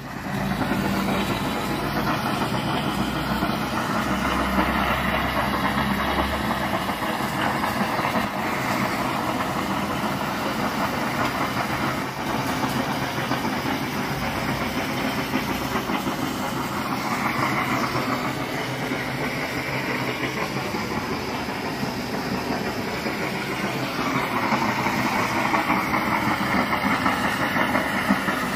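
Natural gas hissing out of an opened gas service pipe at a household meter, blowing out the water that had collected in the line and spraying it; a steady rushing hiss. The water in the meter line is what had been blocking the gas supply.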